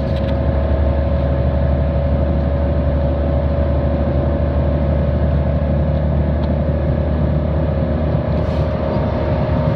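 City bus engine and drivetrain running at a steady speed: a constant low drone with a steady whine above it and no rise or fall in pitch.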